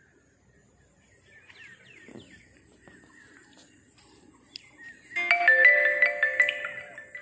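A short marimba-like tune of quick, ringing mallet-style notes starts suddenly about five seconds in, loud, and fades out over the next two seconds. A few faint bird chirps come before it.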